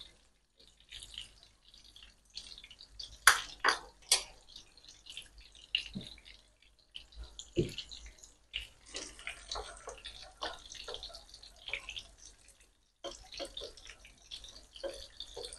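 Breaded chicken pieces frying in hot oil in a pan, sizzling and crackling with irregular pops. There are a few sharper clicks about three to four seconds in.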